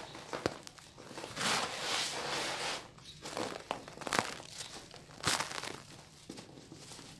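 Hands crumbling a dry sand-and-cement block, the grit crunching and the powder falling away in bursts, with one longer stretch of trickling grit about a second and a half in. Crunchy and gritty.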